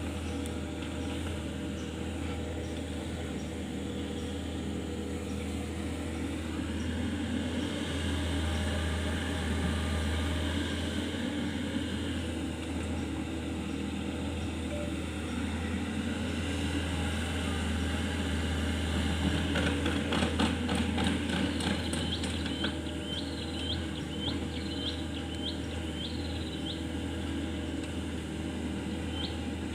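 Kobelco SK 50 P mini excavator's engine running steadily, working harder twice. During the second of these there is a short run of rapid clicks, and short repeated chirps follow near the end.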